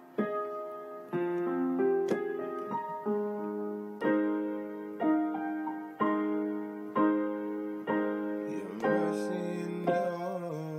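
Slow instrumental keyboard music in a piano sound. Chords are struck about once a second and left to ring and fade, with a few wavering notes near the end.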